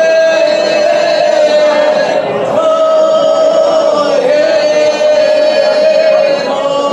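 Women's folk group singing ojkača, the Serbian traditional unaccompanied style, in long held chest-voice notes sung together in close harmony, with a brief break between phrases about two seconds in.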